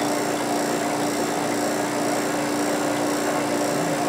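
Electric laboratory vacuum pump running steadily as it draws the air out of a glass bell jar, a steady hum with a clear low tone.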